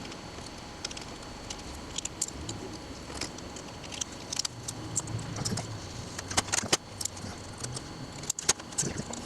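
Handling noise while a vinyl decal is applied to a pinball cabinet: scattered light crinkles and clicks, growing busier and louder about halfway through.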